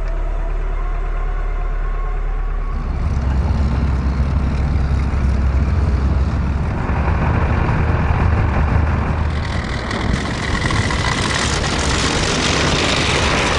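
Tracked over-snow vehicle running: a steady low engine drone that changes abruptly about three seconds in, with a loud hiss joining it near ten seconds.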